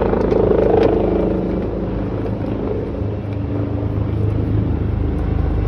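A steady engine drone, its tone shifting slightly about halfway through, with a couple of light clicks near the start.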